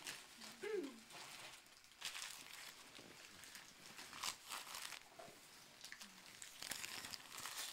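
Wrapping paper and gift packaging crinkling and rustling in irregular bursts as a present is unwrapped and handled.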